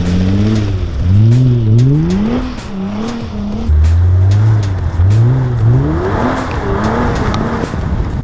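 Nissan GT-R engine revving hard and easing off again and again as the car is slid around on grass, its pitch rising and falling in several sweeps. A rushing noise builds up near the end.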